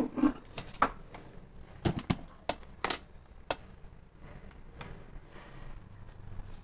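Spatula knocking and scraping against a non-stick kadai while a thick fish curry is stirred: a string of sharp, uneven clicks over the first few seconds, one more near five seconds in, then the gravy simmering softly.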